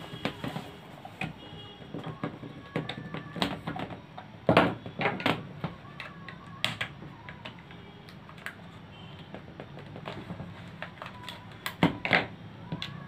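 Irregular small clicks and taps of a screwdriver and screws against the plastic handle of an electric mosquito racket as its screws are refitted, with a few louder knocks about four and a half seconds in and again near the end.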